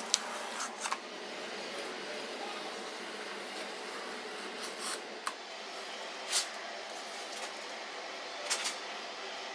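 Handling noise from cutting and fitting strips of copper self-adhesive film: several short, sharp clicks and crinkles as the knife, the metal ruler and the foil strips are worked, over a steady low hiss. The loudest click comes a little past the middle.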